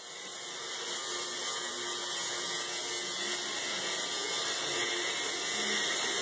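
Electric shaver running with a steady buzzing whir, getting louder over about the first second, then holding steady.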